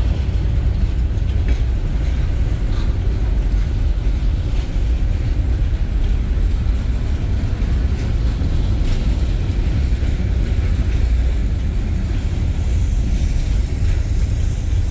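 Freight train covered hopper cars rolling past at a grade crossing: a steady low rumble of steel wheels on rail, with faint scattered clicks from the wheels and rail joints.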